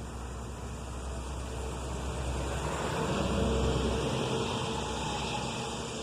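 A car passing on the road: tyre and engine noise swelling to its loudest about three to four seconds in, then fading away.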